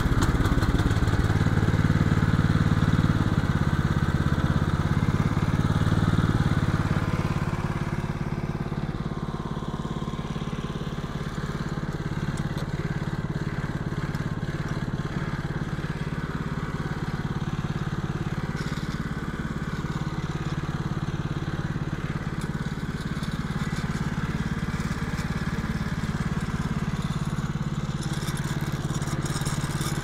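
Small gasoline engine of a Norwood LM29 portable band sawmill, just pull-started and running steadily. It runs a little louder for the first seven seconds or so, then settles to a lower, even level.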